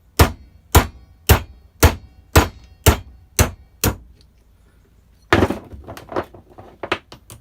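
Hammer blows knocking a seized bush out of a Stihl FS240 brush cutter's clutch: eight sharp, evenly spaced metal strikes, about two a second. Past the halfway mark comes a short clatter of smaller metal knocks and clicks.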